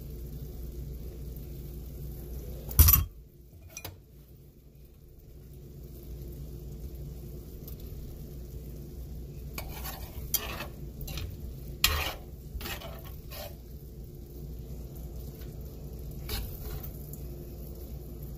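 Serving tongs and a spoon scraping and clinking against a cooking pan and ceramic bowls as lo mein is dished up, over a steady low hum. There is one loud clank about three seconds in, and a run of sharp clinks in the second half.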